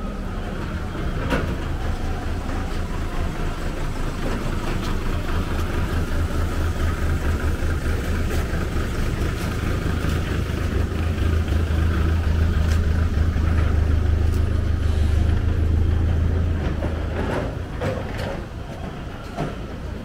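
Engine of a flatbed truck running steadily with a low hum. It grows louder, then stops about three-quarters of the way through. A few light knocks follow near the end.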